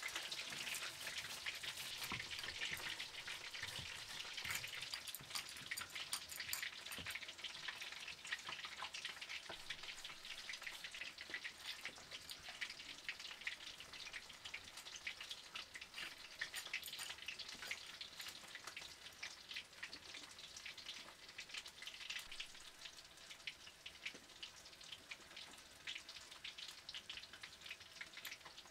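Stone roller crushing and rubbing spice seeds on a flat stone grinding slab (Nepali silauto and lohoro): a steady gritty crackle made of many small crunches.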